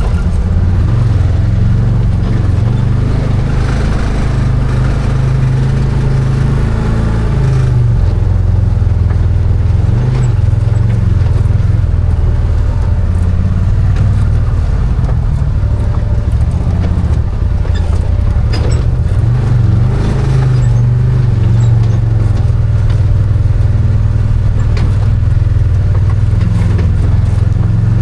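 Arctic Cat Wildcat 1000 side-by-side's V-twin engine running continuously on the trail, its pitch rising and falling with the throttle, with a few sharp clicks and knocks over it.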